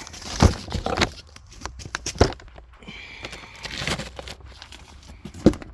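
Handling of a cardboard fireworks cake box and its packaging: rustling and crinkling with three sharp knocks, about half a second in, a little after two seconds and near the end.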